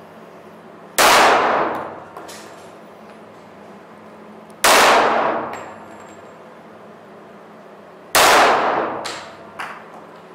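Three single shots from a Korth PRS .45 ACP pistol, about three and a half seconds apart, each followed by a long echo in the vaulted brick cellar. A couple of fainter clicks follow the third shot.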